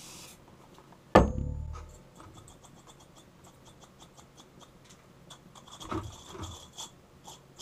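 Aerosol cleaner spray hissing on a coked bearing cuts off just after the start. About a second in comes a single sharp knock, the loudest sound. After it come faint, irregular clicks and ticks of the metal gear and bearing being turned and handled.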